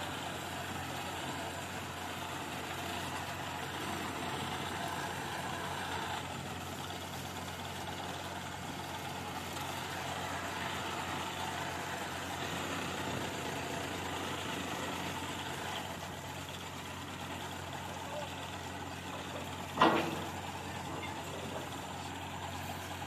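Steady engine running at a constant pace, with one sharp knock a little before the twenty-second mark.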